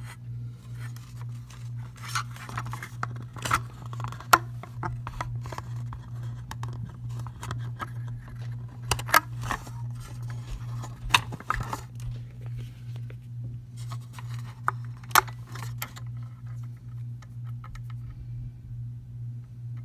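Irregular clicks, knocks and light scrapes of hands working a new rubber drive belt onto the plastic mechanism of a Dept 56 Carnival Carousel, thinning out and stopping about four seconds before the end, over a steady low hum.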